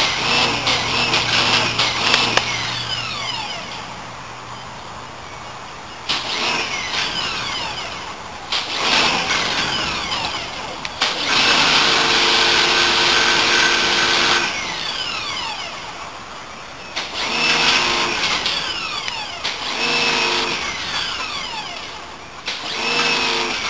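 Pressure washer spraying in repeated bursts of a few seconds, the jet hissing against a galvanised wire-mesh kennel fence, with the washer's pump motor running under the spray.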